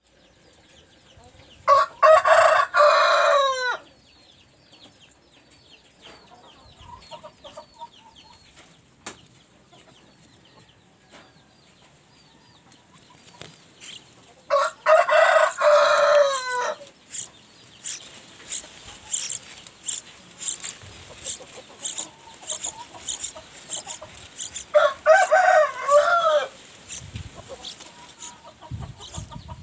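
A rooster crowing three times, each crow about two seconds long and falling in pitch at the end. High chirping runs between the crows.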